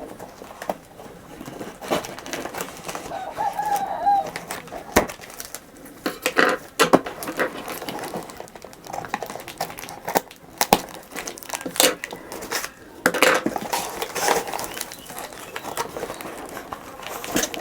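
Packaging being cut open and unwrapped by hand: plastic and bubble wrap crinkling, with scattered sharp clicks and knocks.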